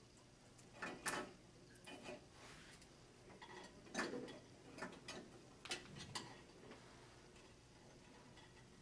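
Faint, scattered light clicks and rustles of electrical wires being handled and joined by hand, about half a dozen small ticks spread irregularly.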